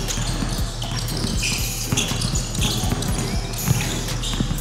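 A basketball bouncing on a hardwood gym floor with a string of short knocks, along with sneakers squeaking briefly and high-pitched several times as players move on the court.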